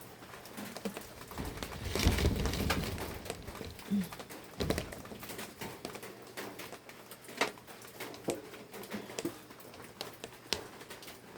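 Irregular knocks and clatter of things being handled and set down, with a louder rustling stretch about two seconds in.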